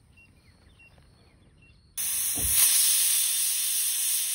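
Pressure cooker whistle: about two seconds in, steam starts hissing loudly and steadily out from under the pressure weight. This is the cooker releasing pressure, one of the whistles counted to time the cooking.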